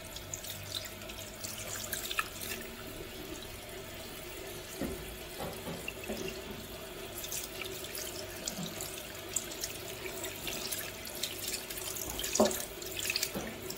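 Tap water running into a stainless steel sink while hands rinse and turn raw fish steaks, with splashing and small clicks. A sharper knock comes near the end.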